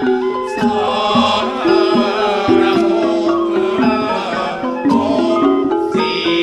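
Thai ceremonial boat-song music (kap he ruea): long held melodic tones over scattered drum strokes.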